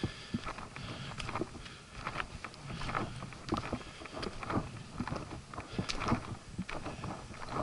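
A hiker's footsteps on a trail, about two steps a second, with rustling in between.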